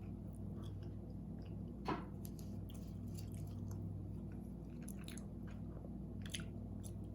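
A person chewing soft fries topped with cheese sauce and bacon: faint mouth clicks and smacks, one a little louder about two seconds in, over a steady low hum.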